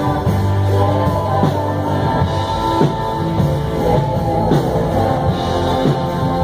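A band playing a rock-style song live in rehearsal: drum kit keeping a steady beat under guitar and bass.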